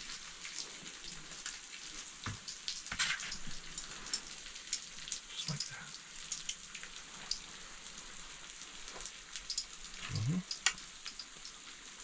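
Broccolini sizzling and hissing in a hot pan, with scattered small clicks and crackles.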